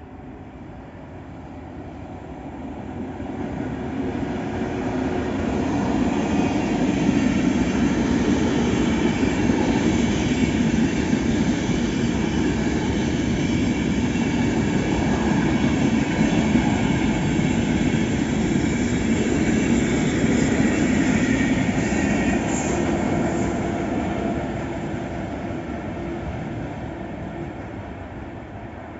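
A train passing through at speed. Its rumble and rail noise build over about six seconds, stay loud for about fifteen seconds, then fade away.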